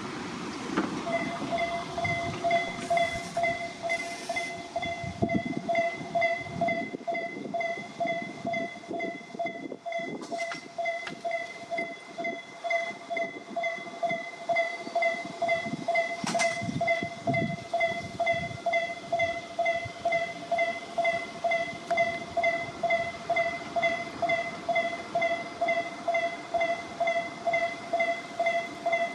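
Japanese railway level-crossing alarm ringing: a single electronic ding repeated steadily at just under two a second, starting about a second in. A listless-sounding alarm. A train rumbles and clatters across the crossing in the low end during the first half or so.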